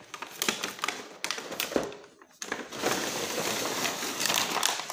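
Cardboard box being opened and its clear plastic packaging tray handled: a run of sharp crinkles, crackles and taps, with a short lull about two seconds in and then denser crackling.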